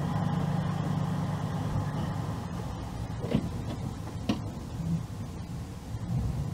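A car's engine and road noise as it drives slowly, a steady low hum. Two short clicks come about a second apart near the middle.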